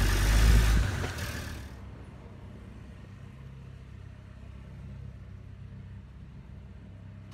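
RC scale Land Rover Defender driving with its motor whirring loudly, then coming to a stop about two seconds in. A low steady hum carries on after it stops.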